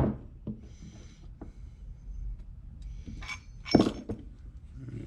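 Knocks and clinks of small metal carburetor parts and tools being handled during a carburetor teardown, a few separate sharp knocks with the loudest cluster a little under four seconds in.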